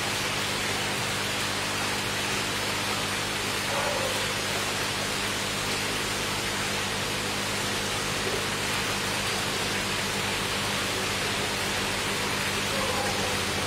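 Steady rushing hiss like running water, with a low steady hum underneath.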